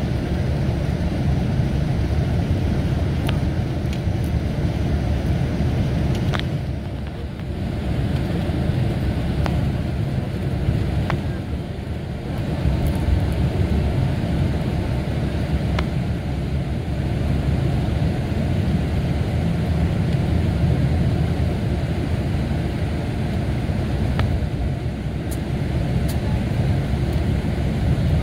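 Diesel engine of a Mercedes-Benz O-500RSD coach running steadily as the bus drives, a continuous low drone mixed with road noise. A few light clicks and rattles sit over it, and it eases off slightly twice.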